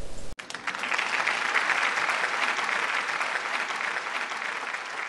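Applause from a crowd, cutting in abruptly just after the start and slowly fading.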